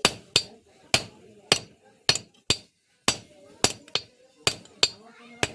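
Blacksmith's hand hammer striking steel on an anvil while forging a chisel: sharp, ringing blows about every half second, now and then a quick lighter tap after a blow.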